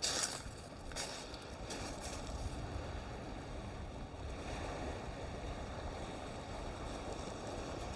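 Steady wind rumbling on the microphone over the wash of water on the shore, with a few brief rustles in the first couple of seconds.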